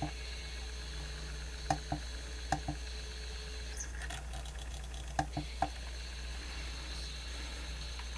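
Sony D-142CK Discman playing a CD and skipping constantly: a few faint clicks in twos and threes over a steady low hum.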